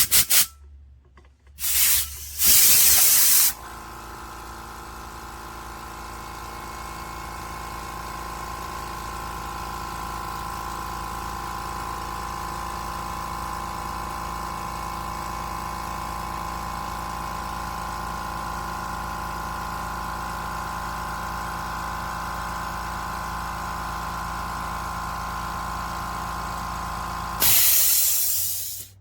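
Limodot 5-gallon oil-free quiet air compressor running steadily, a hum of several fixed tones that slowly grows a little louder. Short blasts of compressed air hiss out three times in the first few seconds, and there is a longer blast near the end.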